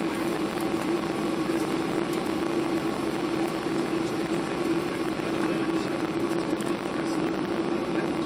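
Steady drone of a Boeing 737-800's passenger cabin in flight: engine and airflow noise with a constant low hum, unchanging throughout.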